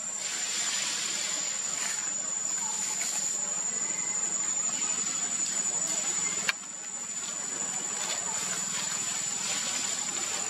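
Insects in the trees droning, a steady high-pitched whine over a hiss. A single sharp click comes about six and a half seconds in.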